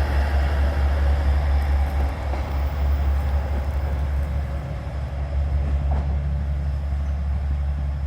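KiHa 47 diesel railcar running: a steady, strong low engine drone with a haze of rail and mechanical noise over it, which eases off slightly about five seconds in.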